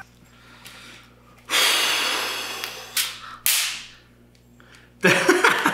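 A man's long hissing breath through the teeth, then two sudden sharp hisses about half a second apart, as he takes a shock from an electric fly-swatter zapper.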